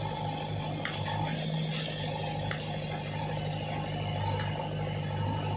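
Heavy diesel engine of a JCB backhoe loader running steadily with a low hum, with a few faint light clicks through it.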